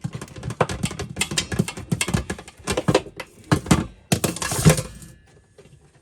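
Old kitchen mixer tap and its hoses being worked out through the sink's tap hole: a rapid run of knocks, clicks and scraping that stops about five seconds in.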